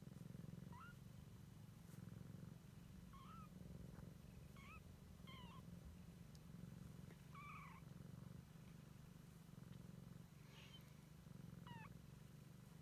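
Siamese mother cat purring faintly and steadily, with a young kitten giving about seven short, high-pitched mews spread through the stretch.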